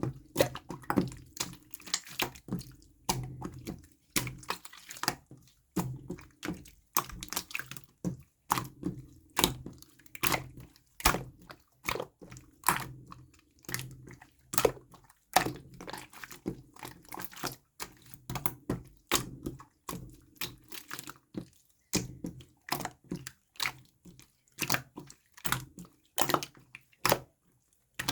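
Clear slime being squished and pressed by hand, making a stream of sharp wet clicks and pops, several a second.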